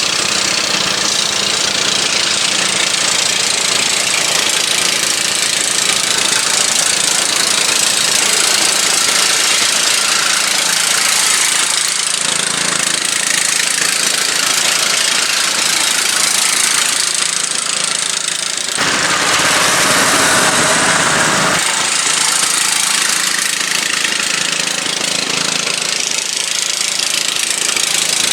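Turf-Power lawn tractor's small engine running steadily, its tone shifting for a couple of seconds about two-thirds of the way through.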